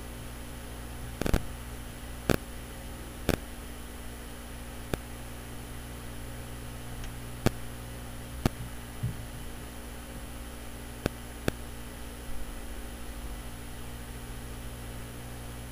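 Scattered single computer mouse clicks, about nine of them at irregular intervals, over a steady electrical hum and hiss.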